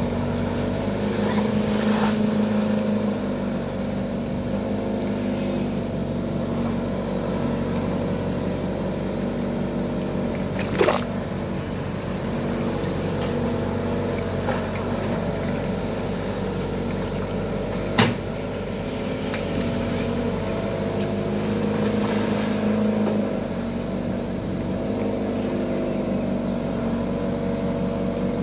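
Kato HD450 long-reach excavator's diesel engine running steadily as it works the boom and bucket, swelling in level twice. Two sharp knocks stand out over the engine, about seven seconds apart.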